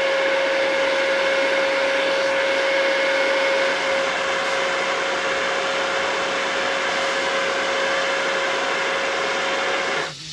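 Leaf blower running steadily at full power, a loud rushing of air with a steady whine, cutting off suddenly near the end.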